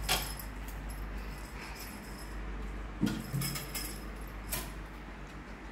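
A cat teaser wand toy jingling and rattling as it is waved about, with a few louder knocks: near the start, about three seconds in, and about four and a half seconds in.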